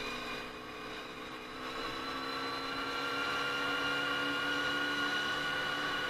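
Honda VFR400 NC30's 400 cc V4 engine under way: the note eases off briefly, then climbs slowly and steadily in pitch and loudness as the bike accelerates.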